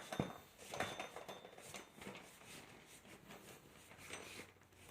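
Faint scattered clicks and light knocks of a bicycle wheel and tyre being handled.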